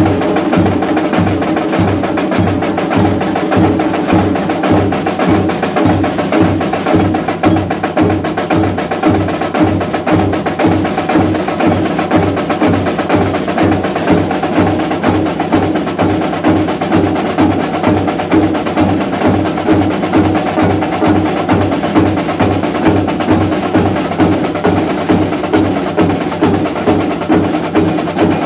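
Several snare drums played together with sticks in a steady, rhythmic pattern, the strokes evenly spaced and unbroken throughout.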